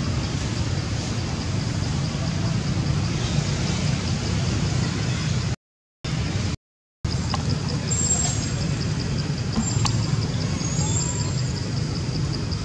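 Steady low rumble of distant road traffic, with a faint high pulsing tone and a few short high chirps in the second half. The sound cuts out twice briefly about six seconds in.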